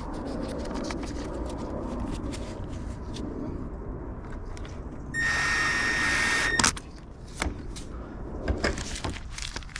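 A loud, steady high-pitched electronic beep lasting about a second and a half, cut off by a sharp click, over a low rumble and scattered light clicks.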